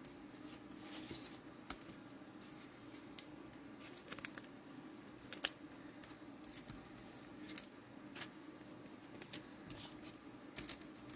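Faint scattered clicks and crinkles of trading cards and a card pack's wrapper being handled, over a low steady hum.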